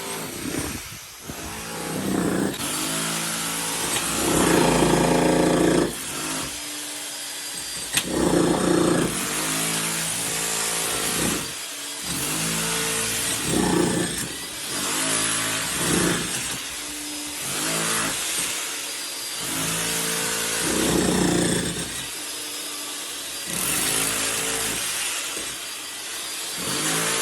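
Power tool boring into a wall, running in repeated bursts of a second or two with its pitch shifting as it bites and eases off.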